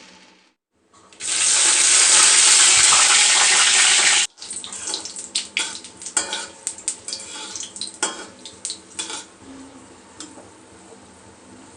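Kitchen sounds: a loud, steady rushing hiss for about three seconds that cuts off sharply, then light clinks, taps and scrapes of utensils on cookware.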